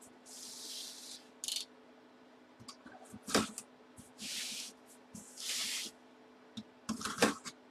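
Cardboard shipping box being handled and opened: several short hissing scrapes of cardboard and packing tape, with a few sharp knocks.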